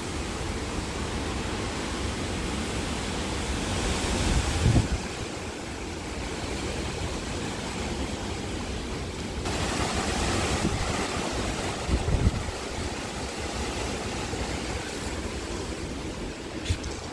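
Hurricane wind gusting with rain, a steady rushing noise that swells about four seconds in and again past the middle, with low buffeting thumps at the peaks. A short knock near the end.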